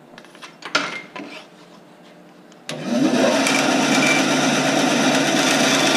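A few short knocks and clatters of handling, then a bit before halfway a benchtop bandsaw switches on. Its motor spins up with a quick rising hum and then runs steadily, loud, as the blade cuts into a thin wooden part.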